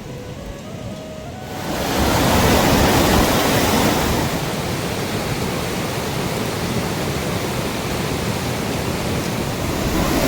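Fast mountain river rushing, a loud, steady roar of water that comes in suddenly about two seconds in.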